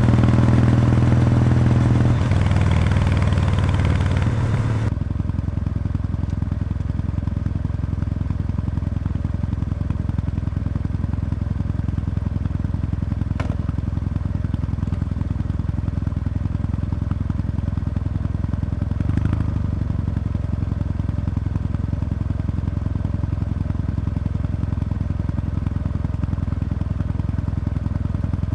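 Kawasaki W800's air-cooled parallel-twin engine heard through its stock muffler with the baffle removed, running at higher revs and then dropping in two steps to a steady idle about five seconds in.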